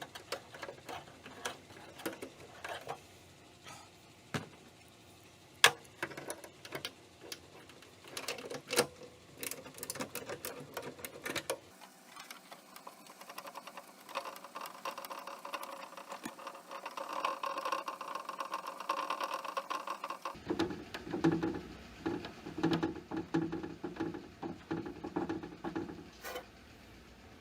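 Hand tools working on car door hardware: scattered clicks and knocks, then denser rapid mechanical clicking and rattling. The sound changes abruptly twice.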